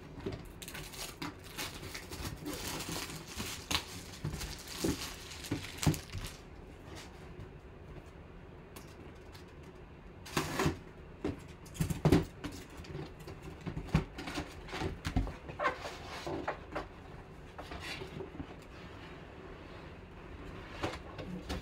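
Hands opening a cardboard box. The first few seconds are dense rustling and clicking as the box is handled and unwrapped. From about ten seconds in, a blade slits the box seam, and scattered knocks and scrapes of cardboard follow as the flaps are opened and the contents pulled out.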